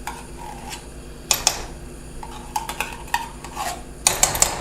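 A metal spoon scraping and clinking against a can and a cooking pot while tomato paste is spooned in: irregular clinks and scrapes, one loud about a second in and a quick cluster near the end.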